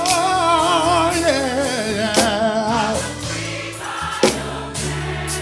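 Gospel choir singing held, wavering notes over a band, with a steady bass line and a drum hit about every two seconds.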